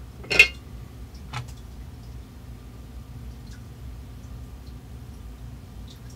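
A sharp metallic clink about half a second in, then a softer tap a second later, as the soldering iron is handled at the turntable's wiring. A low steady hum runs underneath.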